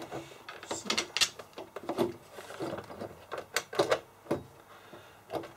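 Irregular clicks, taps and light metallic knocks of hand work: parts being handled and fitted against the front panel of a MIG welder's casing.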